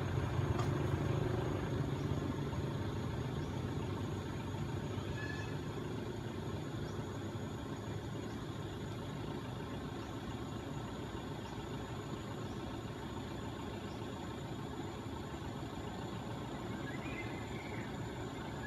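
A steady engine hum over background noise, its low rumble fading a little over the first couple of seconds. A brief faint squeal comes near the end.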